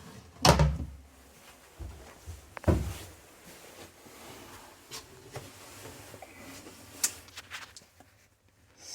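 Thumps and knocks of a compartment door or lid being handled: two heavy thumps about two seconds apart, then a few lighter clicks and knocks.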